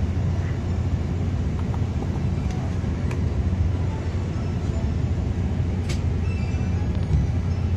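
Steady low drone of a Mercedes-Benz diesel coach heard inside the passenger cabin, engine and running gear humming through the body, with a couple of faint ticks about three and six seconds in.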